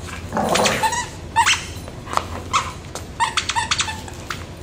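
Dog giving short, sharp barks and yips, about eight of them, several in quick succession about three seconds in: excited play barking during a tug-of-war game.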